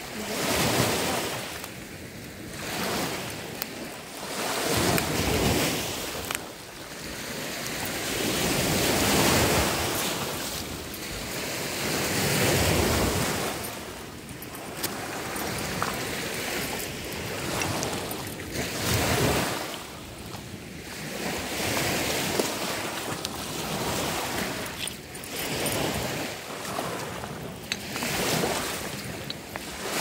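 Small sea waves breaking and washing up onto the beach, the wash swelling and ebbing every few seconds.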